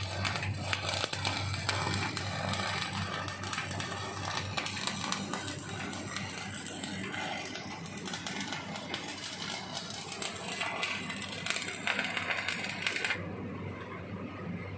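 Rapid mechanical clicking and rattling of metal work, over a steady low hum; the high, hissy part of the sound cuts off suddenly near the end.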